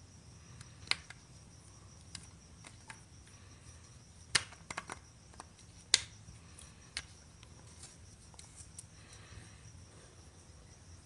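Faint, scattered metallic clicks and taps as a Honda Rebel 500's oil drain plug is threaded back in by hand. The two sharpest clicks come about four and six seconds in.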